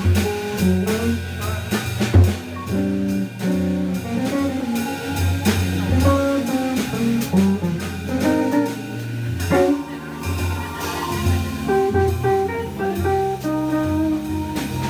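A jazz organ trio playing live: archtop electric guitar with organ and drum kit, swinging over a walking organ bass line.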